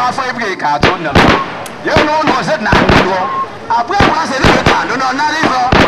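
A run of irregular loud gunshot bangs from the gun-firing society's guns, several each second at times, over a crowd of voices singing.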